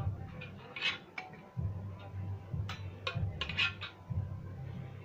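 Metal ladle scraping and clinking against the inside of an aluminium pressure cooker as biryani is stirred and scooped. A few sharp clinks come about a second in, and a quicker cluster comes around three to three and a half seconds.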